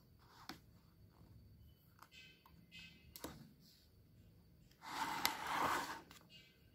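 A page of a children's picture book being turned by hand: a short papery rustle and swish about five seconds in, after faint clicks of the fingers handling the page.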